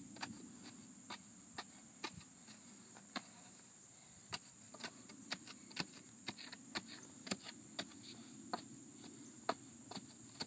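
Dirt being tamped down around a freshly set wooden fence post with a piece of wood, giving irregular sharp knocks about once or twice a second. A steady high insect drone runs under it.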